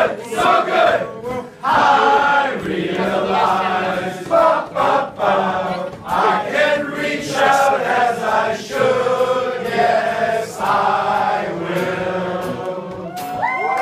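A crowd of people singing together in unison, loud and rhythmic, with many voices blended into held notes.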